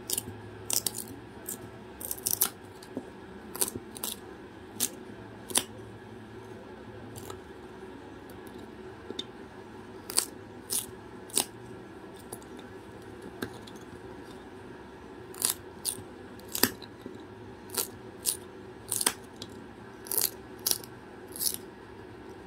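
A cockatoo playing with hard toys: scattered sharp clicks and clinks, irregular and with short pauses, over a faint steady hum.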